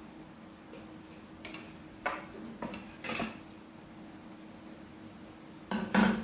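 Dishes and utensils clinking and knocking a few times, the loudest knock near the end, over a faint steady hum.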